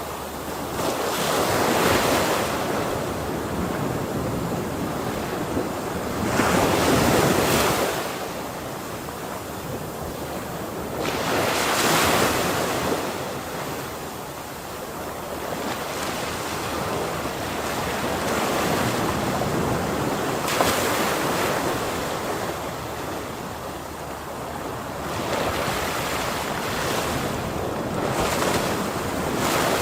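Ocean waves breaking on a shore, one swelling crash every five seconds or so, with the hiss of surf washing between them.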